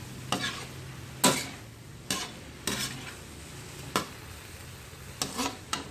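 Kitchenware clinking and clattering as it is handled: about seven sharp knocks spread across a few seconds, over a steady low hum.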